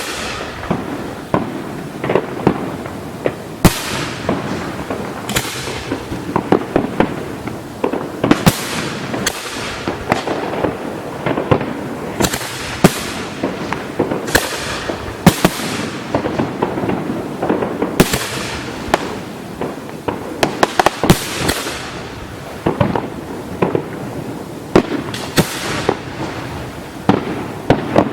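Fireworks display heard close to the firing line: a steady barrage of aerial shells launching and bursting, with sharp loud bangs every second or two over continuous crackling.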